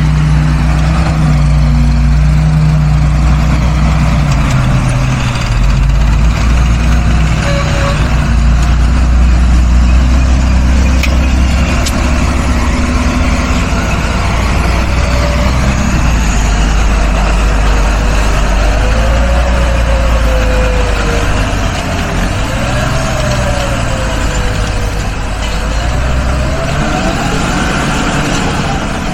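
Large farm tractor engine running hard under load while ploughing. Its pitch steps up and down a few times, and a whine wavers up and down through the second half.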